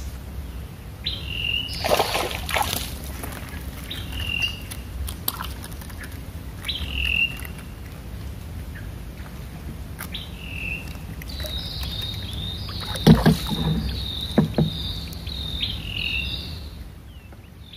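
Birds calling: a short falling chirp repeated every few seconds, and a quick run of chirps in the second half. Two bursts of louder knocks and rustles come around two seconds in and again around thirteen seconds, over a low steady rumble.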